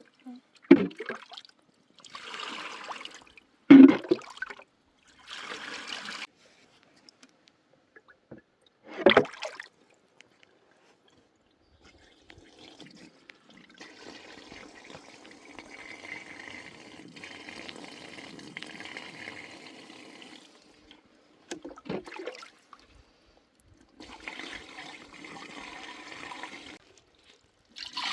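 Water pouring and splashing in several short bursts, two of them loud, then a longer, quieter steady pour of about eight seconds and another short one near the end.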